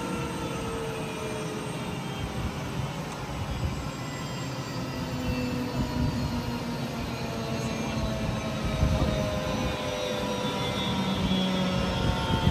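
F-35A's Pratt & Whitney F135 turbofan winding down after shutdown: a whine that falls slowly in pitch over a steady rumble and rush of air.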